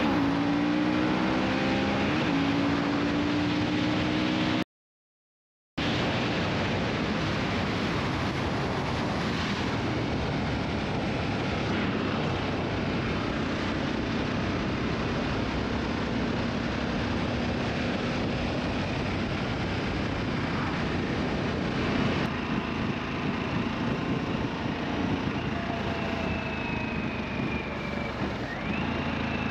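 Harley-Davidson Sportster S's liquid-cooled Revolution Max 1250T V-twin accelerating hard, its pitch climbing, with a gear change about two seconds in. After a brief dropout, mostly wind rush at speed with the engine running underneath.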